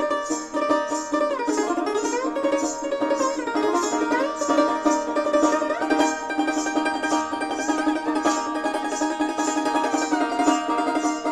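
Background music: a plucked-string melody with sliding notes over a steady drone and an even beat.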